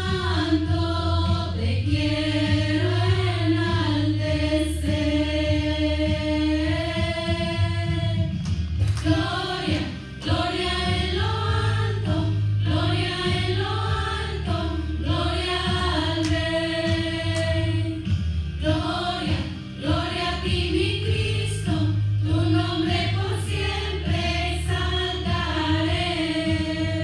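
Group of women singing together into microphones in long held phrases over a steady low accompaniment.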